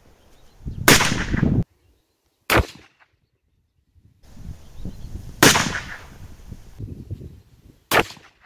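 Four single rifle shots from a VPO-134 (Vepr-3V "Molot"), a semi-automatic civilian RPK in 7.62×39 mm, spaced about two seconds apart. Two of the shots trail off over about half a second, and there is dead silence between some of them.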